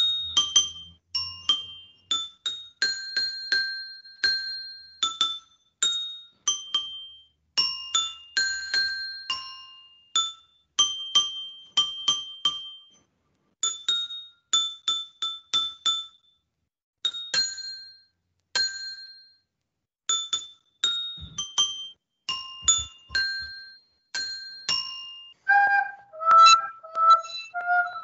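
A slow melody picked out one note at a time on a high, bell-toned instrument, each note struck and ringing out briefly before fading. In the last few seconds a soprano recorder takes over with short held notes.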